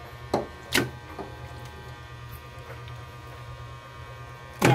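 Steady electrical hum, with three light taps in about the first second as raw pork belly slices are set down in a metal wok.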